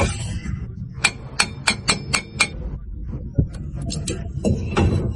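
Hammer striking metal during disassembly of an electric-vehicle drive motor: six quick ringing blows about a second in, followed by a few lighter taps.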